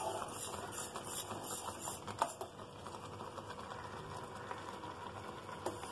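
Steel spoon stirring sago pearls simmering in water in a steel saucepan: light clinks and scrapes against the pan over a steady soft hiss, with a sharper clink about two seconds in.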